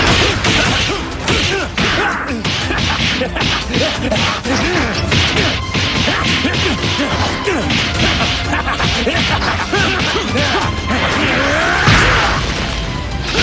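Anime fight sound effects: a rapid flurry of punch and block impacts with whooshes of fast movement, over background music, with one louder hit about twelve seconds in.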